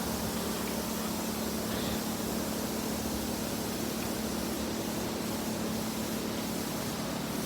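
Steady background hiss with a constant low hum, unchanging throughout.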